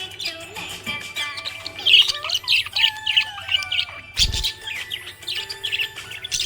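Budgerigar chirping and warbling in quick, busy runs of short notes, with a brief low thump about four seconds in.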